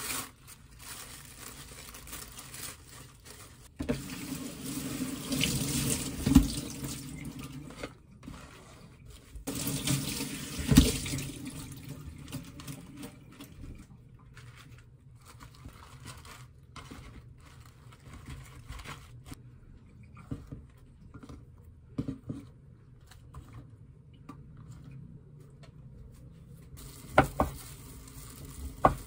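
Kitchen tap running into a sink as lettuce is rinsed, in two stretches of steady splashing hiss, with quieter handling of the leaves between and after. Near the end, two sharp knocks of a cleaver chopping through boiled pork onto a wooden cutting board.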